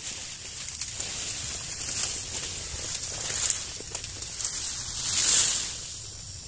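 Leaves and dry palm fronds rustling and crackling as a person pushes through dense undergrowth. The noise swells and fades several times and is loudest about five seconds in.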